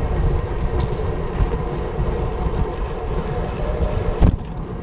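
Wind buffeting the microphone and road rumble from a moving bicycle, a steady low rushing noise, with a single sharp knock about four seconds in.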